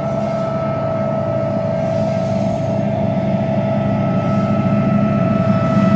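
Diesel locomotive approaching, its engine running with a low rumble under a steady high-pitched whine, growing slowly louder as it nears.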